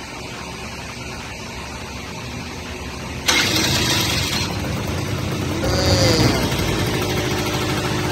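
Suzuki LT80 mini ATV's small two-stroke single firing up: it catches suddenly about three seconds in and then keeps running.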